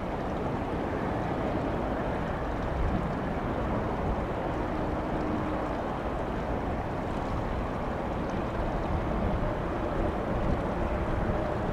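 Steady outdoor rumble with wind on the microphone, and a faint hum that grows slightly louder near the end.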